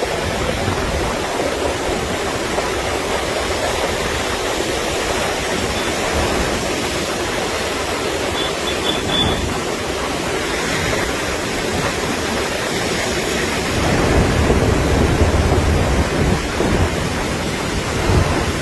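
Floodwater rushing down a seasonal stream in spate: a loud, steady wash of water noise, growing a little louder about three-quarters of the way through.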